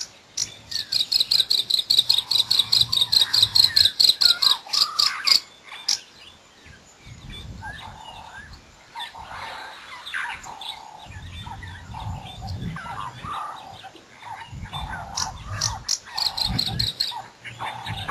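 Small songbirds calling: a fast run of sharp, high chips, about six a second, for several seconds, then softer mixed chattering and twittering, and a second run of chips near the end. Low rumbling noise comes and goes beneath the calls.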